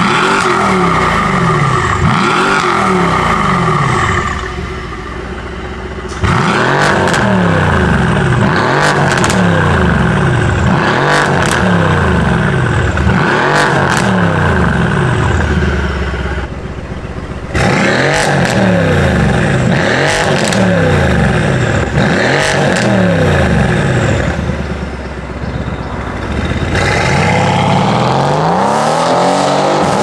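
Mercedes-AMG W205 C63 S twin-turbo V8 with catless downpipes, revved repeatedly while stationary. Quick blips rise and fall every second or two, with short lulls at idle and sharp cracks from the exhaust as some revs drop. The exhaust valves are closed (comfort mode) in the first half and open (sport mode) from about halfway.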